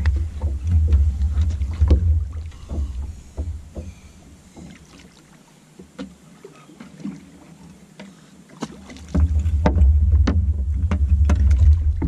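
Scattered knocks, clicks and small water splashes from a hooked turtle being handled and struggling at the side of a fishing boat. Under them is a low wind rumble on the microphone that fades out from about four to nine seconds in.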